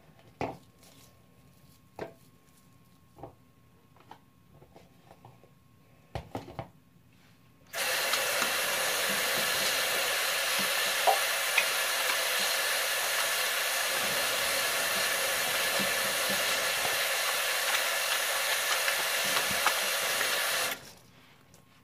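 Faint scattered squishes and clicks of wet slime being kneaded by hand. About eight seconds in, a steady loud hiss switches on abruptly and runs for about thirteen seconds before cutting off just as suddenly.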